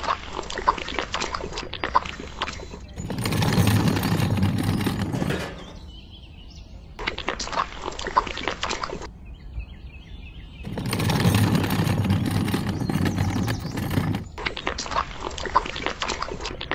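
Small scoopfuls of wet concrete being handled, scraped and poured, heard as clicks and wet crackles, in stretches that alternate with louder stretches of steady low noise.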